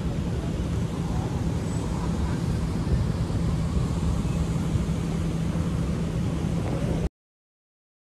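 Road traffic with a steady low engine hum, cutting off suddenly about seven seconds in.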